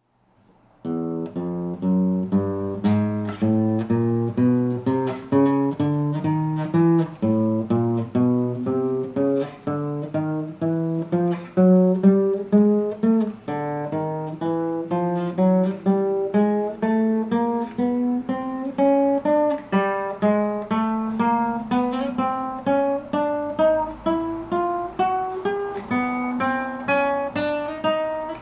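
Acoustic guitar (violão) playing single plucked notes one at a time, about two a second, each a semitone up as the player climbs the frets of one string, then dropping back to start again on the next string and climbing again.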